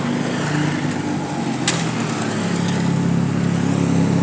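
Large bus engine running steadily, with one sharp click about a second and a half in.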